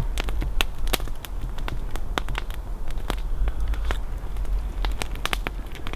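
Wood campfire crackling, with frequent irregular sharp pops.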